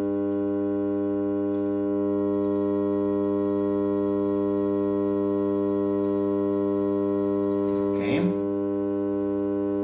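Steady electronic buzz from the audio test setup: one unchanging pitch with a long row of evenly spaced overtones. A brief scratchy noise comes about 8 seconds in.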